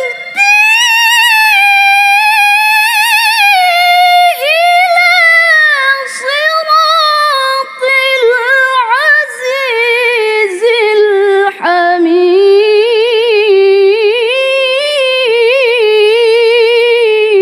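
A woman reciting the Quran in the melodic tilawah style into a microphone: one long, heavily ornamented phrase with a quick wavering quaver, high at first and gradually descending in pitch, broken only by a few brief breaths.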